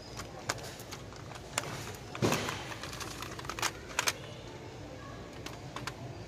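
Small plastic cosmetic packages being handled: scattered clicks and knocks, the loudest a rattling knock about two seconds in, with a few sharper clicks around four seconds, over a steady low background noise.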